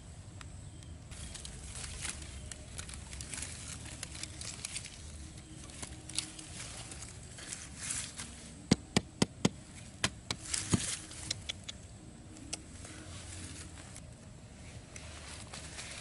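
A small hammer knocking a wooden stake into the ground, a quick run of about six sharp blows just after the middle, amid scratchy handling and rustling as the trap is rigged.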